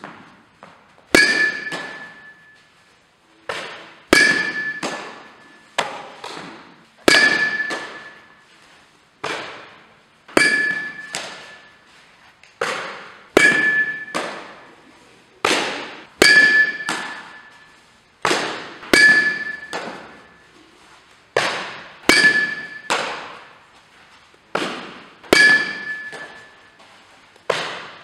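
Softballs being struck in quick succession: a sharp knock about every second, the loudest roughly every three seconds, each with a short metallic ring and an echo from a large indoor hall.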